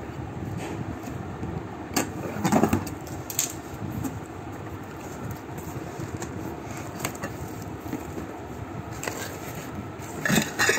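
Cardboard packaging and plastic wrap of a pressure cooker box being handled: scrapes, knocks and rustles from the cardboard inserts and plastic. The loudest are about two and a half seconds in and near the end, over steady background noise.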